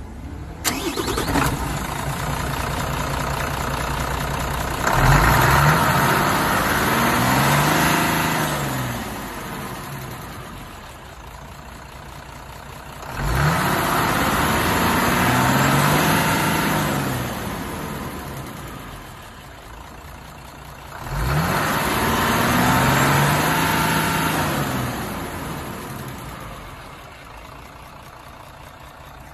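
Mitsubishi Fuso Fighter's turbocharged 6M60 inline-six diesel idling, then revved three times; each time the pitch climbs, holds for about three seconds and falls back to idle.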